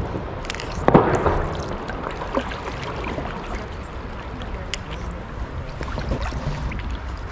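Water splashing and dripping around a sea kayak, with a louder splash about a second in and small scattered drips and clicks after it, over a low rumble of wind on the microphone.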